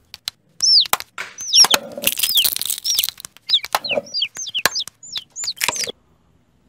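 Hatching-chick sound effects: many short, quick, falling peeps, mixed with clicks and short noisy bursts, stopping abruptly about six seconds in.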